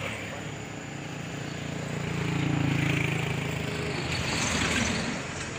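Small motorcycle engine running as it goes by on the road. It swells to its loudest about halfway through, then fades.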